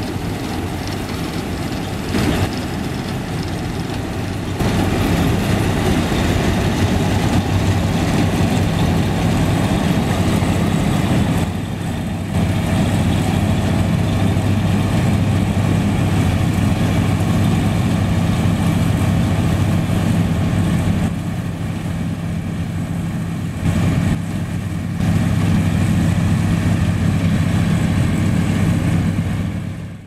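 Massey Ferguson 310 combine harvester's engine and threshing machinery running steadily under load while harvesting. Its loudness steps up and down a few times.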